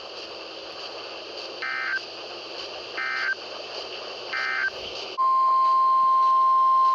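NOAA Weather Radio alert signalling: three short warbling digital data bursts (the SAME end-of-message code) about a second and a half apart, then about five seconds in, a loud steady 1050 Hz warning alarm tone begins, with a faint radio hiss underneath.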